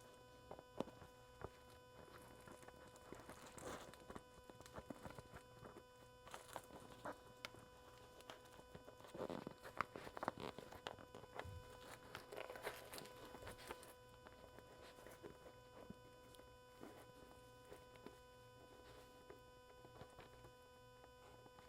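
Faint rustling and small clicks of hands working a footwarmer cable through a fabric ski-boot liner, busiest about halfway through, over a faint steady hum.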